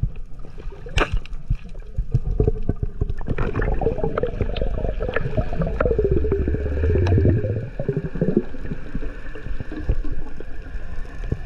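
Water heard underwater through a camera housing: gurgling bubbles and crackling clicks over a low rumble. The bubbling thickens and grows louder from about three seconds in, then fades back after about eight seconds.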